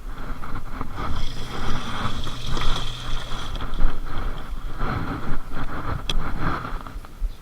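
Noise aboard a fishing boat: wind and water sounds, with a steady motor hum for a couple of seconds and a single click near the end.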